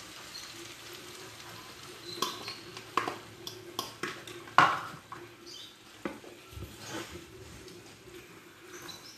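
Beaten egg poured from a bowl into a frying pan of fried potato and beef and stirred in, the bowl and a utensil clinking and knocking against the pan several times over a low sizzle. The sharpest knock comes about four and a half seconds in.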